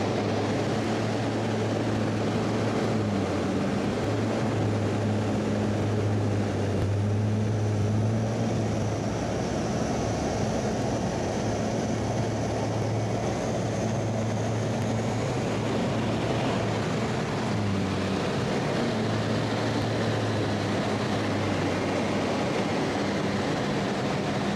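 Steady drone of an Embraer T-27 Tucano turboprop's engine and propeller in flight, with rushing air noise. The low engine note dips briefly about two-thirds of the way through, and a faint high whine rises and fades in the middle.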